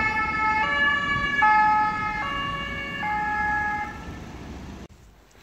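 Two-tone siren of an emergency doctor's car, stepping back and forth between two notes about every three-quarters of a second and growing fainter as the car drives away. It cuts off abruptly near the end.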